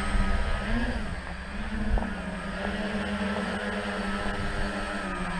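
Tricopter's electric motors and propellers running as it hovers low: a steady hum whose pitch wavers a little with the throttle, with a brief knock about two seconds in.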